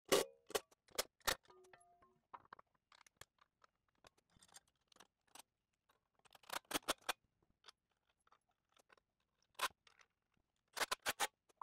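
Scattered metal clicks and clinks as a winch-mount bracket and its bolts are handled, removed and refitted, with a brief ringing tone about a second and a half in. Two quick runs of clicks come about halfway through and near the end.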